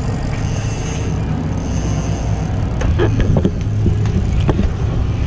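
Boat engine running with a steady low drone, with wind noise over it. A few sharp knocks sound about three seconds in and again near four and a half seconds.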